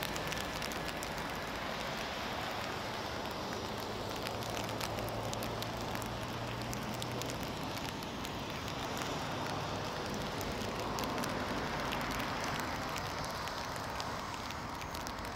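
Four GEnx-2B67 engines of a Boeing 747-8 freighter at takeoff thrust during the takeoff roll, heard from a distance as a steady jet noise, with a low hum through the first half.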